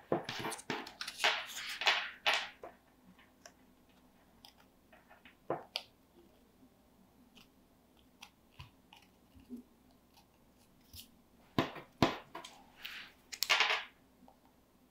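Small cardstock paper pieces handled and pressed together by hand. Bursts of crisp rustling and crinkling come at the start and again near the end, with scattered small ticks in between.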